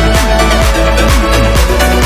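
Background electronic dance music with a steady kick-drum beat, about two beats a second, under sustained synth tones.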